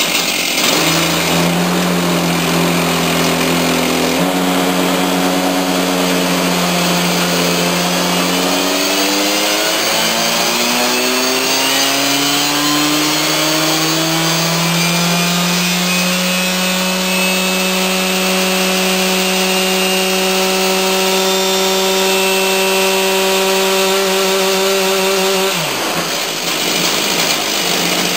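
Stihl 361 two-stroke chainsaw engine running flat out on a dyno stand. The engine note holds steady, dips about a third of the way in, climbs steadily over several seconds and holds high, then drops away sharply near the end.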